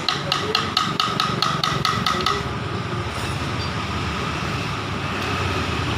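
Quick light hammer taps on metal, about a dozen strikes at roughly five a second, each with a short metallic ring. They stop after about two seconds, leaving a steady low hum.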